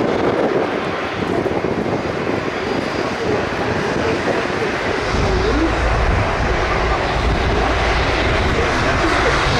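Airliner's engines running loud, a steady rush with a deeper low rumble joining about five seconds in, as an airliner moves on the airfield.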